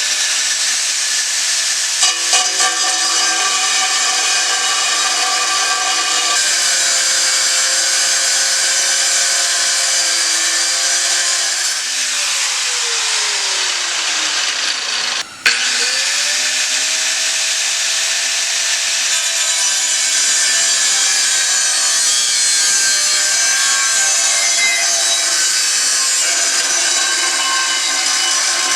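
Grinder with a cutting disc cutting through 1 mm sheet steel, a loud steady whine with a grinding hiss. About halfway it winds down, stops for a moment, and spins back up to cut again.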